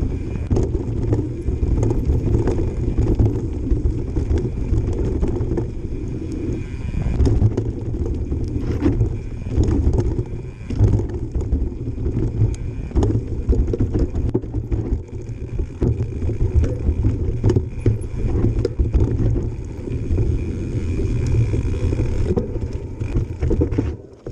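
Mountain bike riding down a rough trail: a steady low rumble of tyres on dirt and rock with frequent knocks and rattles from the bike, and the freehub buzzing at times while coasting.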